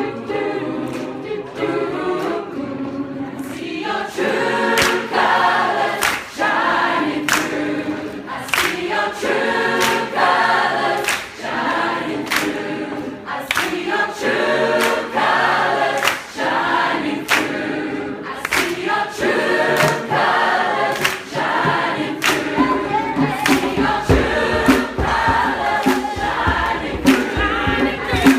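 A choir singing together in harmony, over a steady beat of sharp taps.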